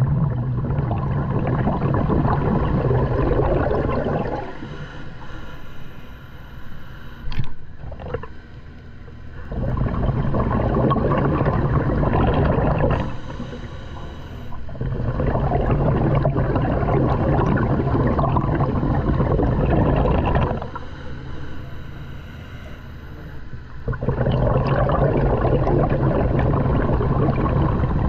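Scuba diver breathing through a regulator underwater: rushes of exhaled bubbles, each about four to five seconds long, alternate with quieter inhalations, four exhalations in all. A short sharp sound comes about seven seconds in.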